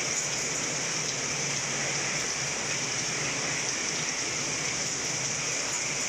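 Heavy rain falling steadily on plants and ground.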